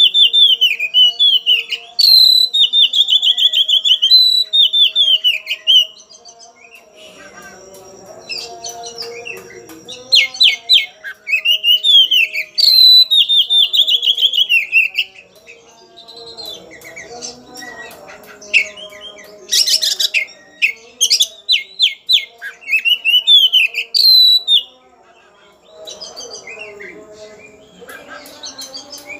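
Oriental magpie-robin singing loudly in long bursts of high, falling slurred whistles and rapid ticking runs, with a few quieter pauses between bursts. This is the bird's aggressive, worked-up song, given as if challenging a rival.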